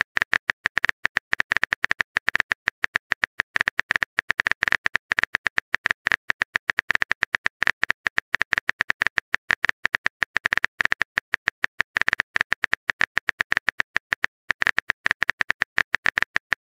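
Keyboard typing sound effect from a texting-story app: a fast, irregular run of sharp clicks as a long message is typed out, with a couple of brief pauses.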